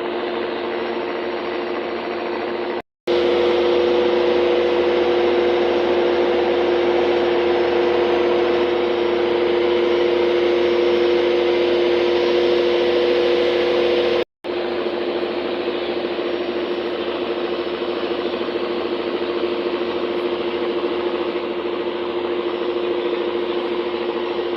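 Steady engine drone with a constant two-note hum over a wash of noise, broken twice by abrupt silent cuts, about three and fourteen seconds in.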